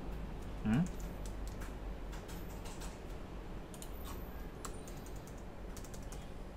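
Scattered taps and clicks of computer keys at an uneven pace. A brief rising 'hm' from a man's voice under a second in.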